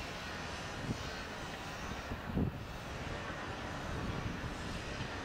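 Steady outdoor background rumble and hiss, with two soft low thumps about one and two and a half seconds in.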